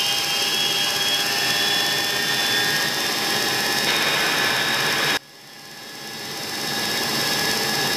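Jet engines of an E-3 AWACS, four TF33 turbofans, running up at takeoff power: a steady jet noise with a high whine that rises slowly. About five seconds in the sound drops away abruptly, then builds back up.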